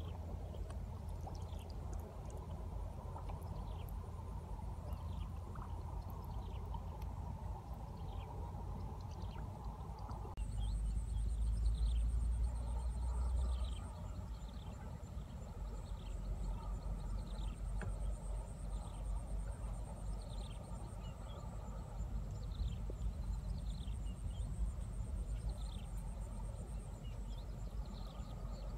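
Outdoor ambience: low wind rumble on the microphone, louder for a few seconds about ten seconds in, with short falling bird chirps repeating about once a second and a thin, steady high-pitched buzz.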